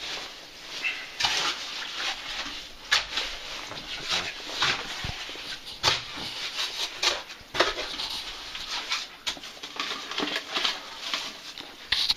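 Heavy, rapid breathing of someone climbing a steel ladder in a narrow mine shaft, a breath about every second or two, with scrapes and a few sharp knocks from boots and gear on the rungs.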